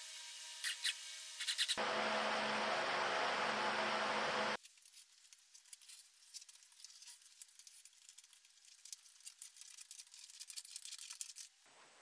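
A cordless drill drives screws into a wooden box-fan frame: first a steady motor whine with a few clicks, then about three seconds of louder, harsher drilling. After that it turns to faint rubbing and scratching.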